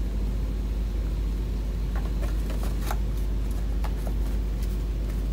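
Steady low drone and rumble of running air-handling machinery, with a few faint scattered ticks about two to four seconds in.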